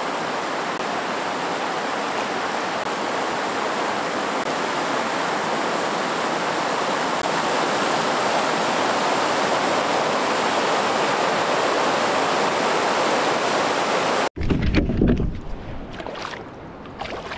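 A steady rush of water over rocky rapids, growing slightly louder. About fourteen seconds in it cuts off abruptly, giving way to a hooked brook trout splashing at the surface in short, irregular bursts.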